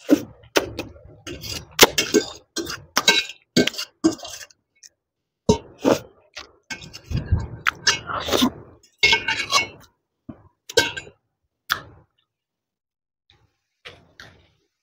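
Instant noodles being eaten close to the microphone: cutlery clinking against a dish in sharp clicks, mixed with eating noises. The sounds come thick and fast at first and thin out to a few scattered clicks near the end.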